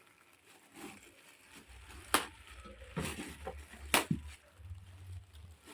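Handling noise from unpacking a large stainless steel pot: scattered knocks and clatter, with two sharp louder clicks about two seconds apart and a low rumble of handling underneath.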